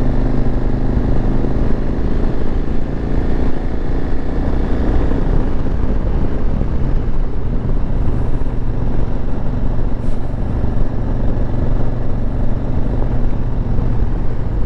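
KTM 1190 R's V-twin engine running steadily under way, with wind noise over the microphone.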